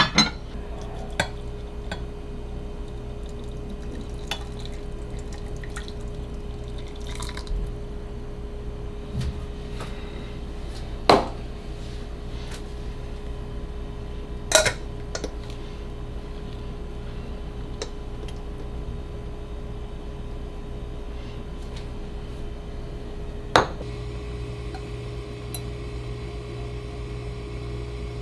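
Scattered clinks and taps of a glass teapot and kitchenware being handled, a few seconds apart, over a steady low hum.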